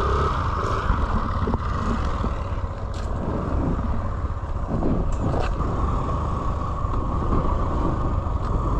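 An engine running steadily, with a constant low rumble and a steady hum.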